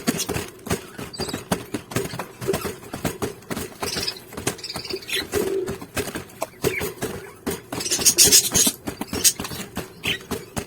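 Parrot chicks squeaking, with high calls about four seconds in and again near the end, over steady scratching and clicking from claws and movement.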